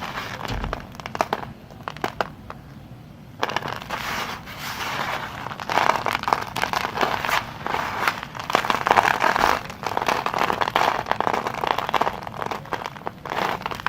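A blade cutting through soft soap, giving a dense, irregular crackling and crunching. There is a brief lull about two seconds in, and the crackle comes back denser from about three and a half seconds.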